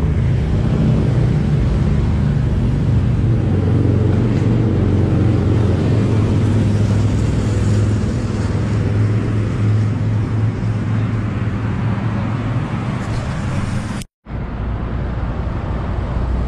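Steady street traffic noise with a motor vehicle engine running close by, a low rumble and hum. The sound cuts out for a moment near the end.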